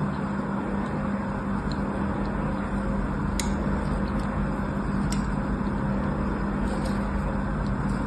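A thin blade scoring lines into a bar of soap, a soft steady scraping with a few sharp clicks from about three seconds in, over a constant low hum.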